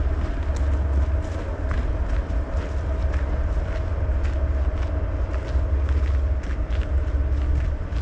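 Steady low rumble of a passing train, with a steady hum running through it and scattered footsteps on a gravel path.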